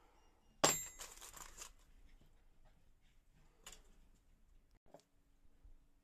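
A sharp metallic clink with a brief ring, like a small steel nail tool knocking down, followed by about a second of crinkling as the acetone-soaked aluminium foil wrap and cotton ball are pulled off a fingernail. A second, shorter crinkle comes past the middle, and a light tap near the end.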